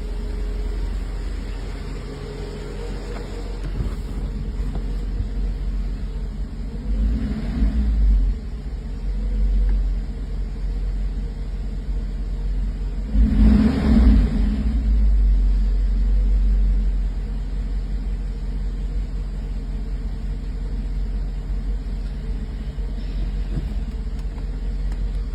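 1984 Mercedes-Benz 380SL's V8 engine idling steadily with a constant low rumble, swelling briefly louder twice, about seven and thirteen seconds in. The idle is smooth again, the rough running cured by a replacement engine control unit.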